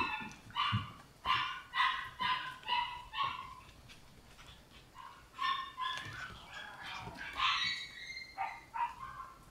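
Shiba Inu puppy giving high-pitched yips, a run of about seven short calls at roughly two a second, then after a brief lull more irregular yips and whines.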